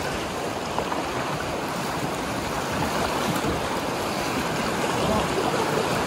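Fast-flowing river water rushing over rocks in rapids: a steady, even rush of water.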